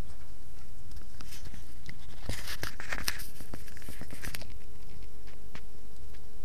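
A burst of crinkling, rustling noise with many small clicks lasting about two seconds in the middle, followed by scattered light ticks over a steady low hum.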